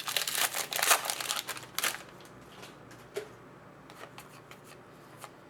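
Hockey trading cards being handled and slid against one another, rustling for about the first two seconds, then only a few light taps.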